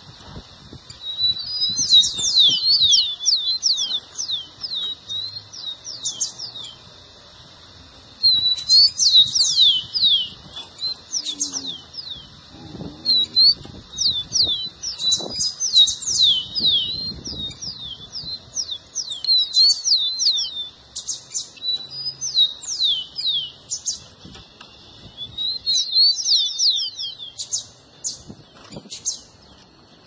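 Rufous-collared sparrow (tico-tico) singing: about six bursts of song, each a quick run of high, downward-sliding whistled notes, with short pauses between them.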